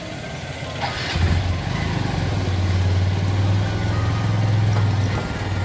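Motorcycle engine running as the bike rolls slowly along, a steady low drone that picks up about a second in.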